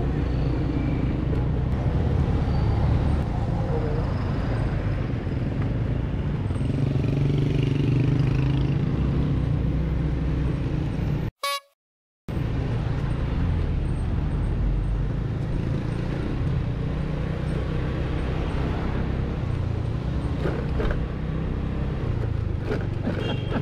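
149 cc Kavan S automatic scooter under way: steady engine drone mixed with wind and road rumble on a handlebar-mounted action camera, with other traffic around. The sound drops out for under a second about halfway through.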